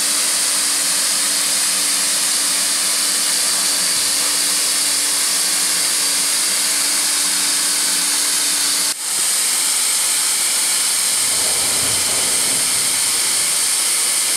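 Hand-held hot air welding gun blowing a steady hiss as it heat-welds a seam in vinyl safety flooring, with a low hum underneath. There is a brief break about nine seconds in, after which the hiss goes on without the hum.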